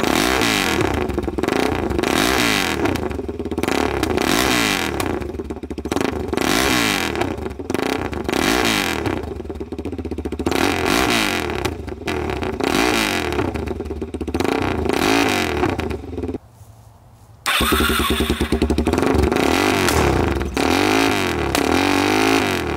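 Straight-piped 2009 Suzuki DR-Z400SM single-cylinder four-stroke engine revved over and over in place, its pitch climbing and falling with each blip of the throttle, with crackling pops between revs from the open exhaust backfiring. The engine drops to a brief lull about sixteen seconds in, then picks back up.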